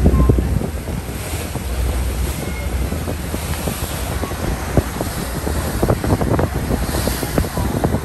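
Wind buffeting the microphone on a boat at sea, over the rush of waves and water along the hull, with irregular crackles and a low rumble.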